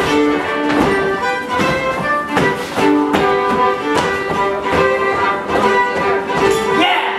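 Dance tune played live for an English longsword dance, with steady melody notes and sharp knocks from the dancers cutting through it every half second to a second.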